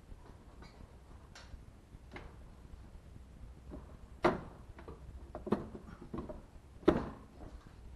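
Motorcycle rear wheel being worked onto its drive splines: light clicks, then three sharp metal clanks in the second half as the hub knocks against the drive while the splines are lined up.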